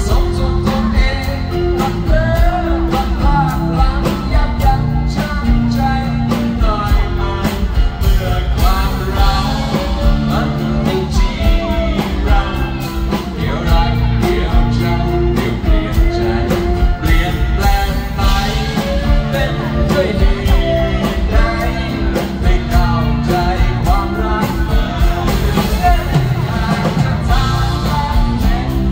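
Live band music amplified through a PA: a man singing a Thai song while strumming an acoustic guitar, with band backing and a steady beat.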